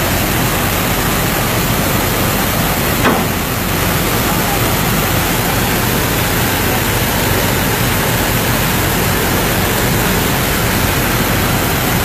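Steady rush of a muddy waterfall of floodwater pouring down a hillside onto the road, with a brief click about three seconds in.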